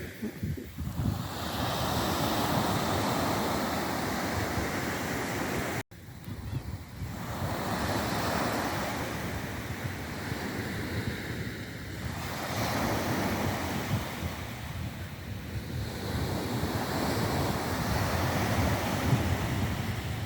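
Sea waves breaking and washing on the shore, surging and fading every few seconds, with wind buffeting the microphone. The sound cuts out completely for a moment about six seconds in.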